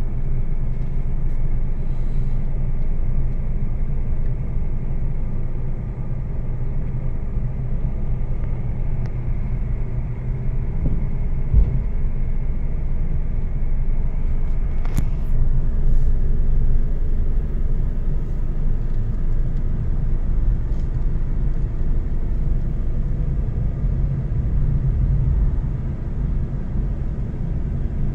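Car driving along a paved road, heard from inside the cabin: a steady low rumble of engine and tyres, with a couple of brief knocks about halfway through.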